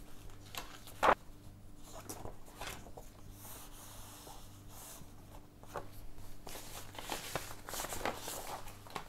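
Pages of a binder of old magazine sheets being handled and turned: paper rustling and light taps, with one sharp click about a second in.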